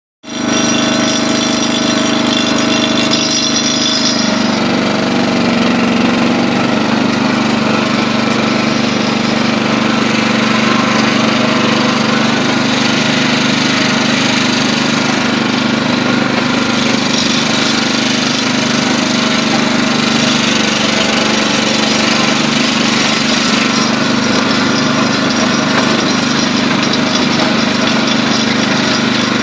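Neva walk-behind tractor's single-cylinder four-stroke petrol engine running steadily while it pulls a cart loaded with logs. Its note settles slightly lower about four seconds in.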